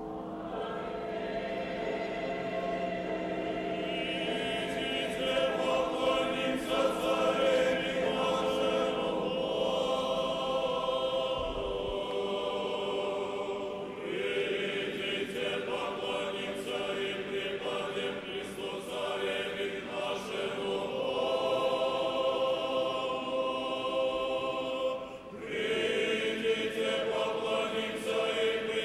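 Church choir singing Russian Orthodox liturgical chant a cappella, in long sustained phrases with a short break between them about halfway through and again near the end.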